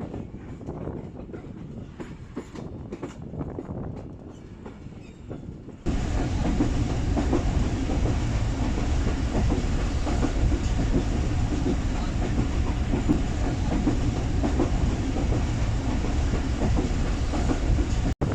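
Passenger train running on the track, heard from on board, with wheels clicking over the rails. About six seconds in the sound jumps abruptly to a much louder, steady rushing rumble of the moving train.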